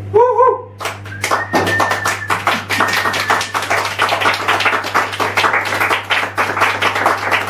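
Amplified noise-performance sound: a short wavering electronic tone, then a dense run of rapid, irregular clicks and taps with a thin high tone sounding twice early on, all over a steady low electrical hum.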